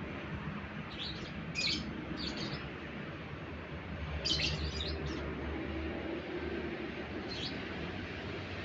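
Yellow lovebird giving short, high, scratchy chirps in brief clusters, about five times, over a steady low hum.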